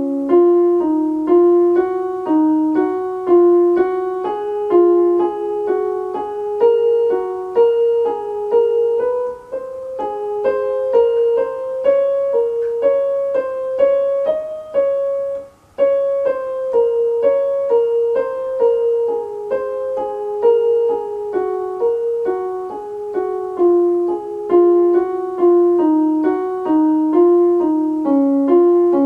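Portable electronic keyboard played with a piano voice: a single melody line of evenly paced notes moving step by step, with a short break about halfway through.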